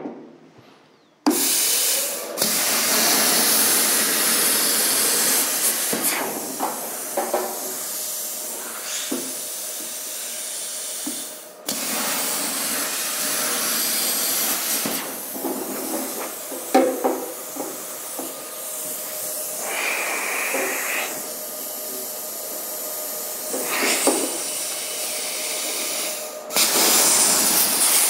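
Plasma cutter cutting through a rusty sheet-steel tractor fender: a loud, steady hiss of the arc and air that starts about a second in, cuts out briefly twice and restarts each time.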